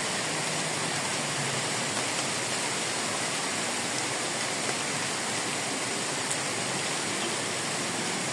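Heavy rain falling steadily, a dense even hiss with a few sharper drop ticks.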